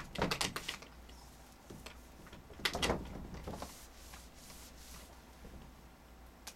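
A cloth rubbed against a whiteboard in short strokes: a cluster of quick rubs at the start, another burst a little before the middle, then softer rubbing.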